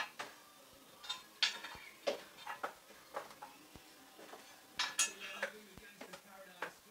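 Light, irregular metallic clinks and knocks of hand tools and fittings against the steel body panels of a car being worked on by hand, the sharpest about one and a half seconds and five seconds in.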